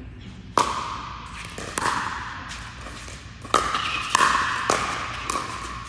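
Pickleball rally: sharp pocks of paddles striking the hollow plastic ball, with the ball bouncing on the court, about six hits in all at irregular intervals of roughly a second. The first is the loudest. Each rings briefly and echoes in the large indoor hall.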